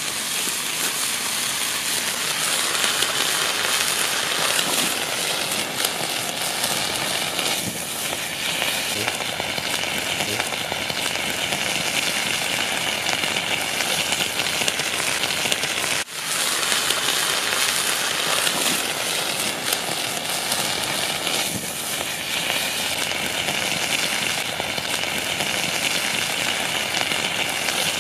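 Foil-wrapped fish sizzling and crackling on a tray of molten lava rock, a dense, steady hiss as the fish's moisture boils off into steam and smoke. There is a momentary break just past the middle.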